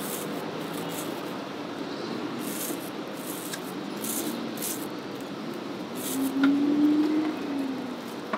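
Thin plastic food bag rustling and crinkling in short bursts as it is opened around a chicken feet salad, over steady street noise. A low hum swells for about a second and a half about six seconds in.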